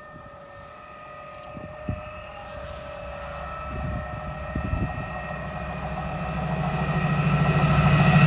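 Diesel freight locomotive approaching with a train of wagons, its engine sound growing steadily louder, with a steady whine over a deepening rumble.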